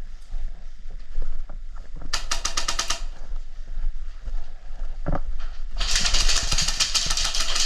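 Airsoft gun firing on full auto: a burst of rapid, evenly spaced shots lasting about a second, then a longer burst starting near the end. A single dull thump comes between them.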